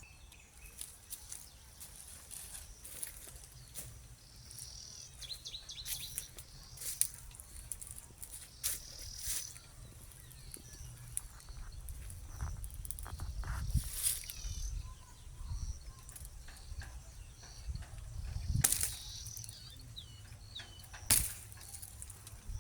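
Outdoor countryside ambience: small birds chirping now and then and insect sounds, with scattered sharp clicks and rustles over a low rumble.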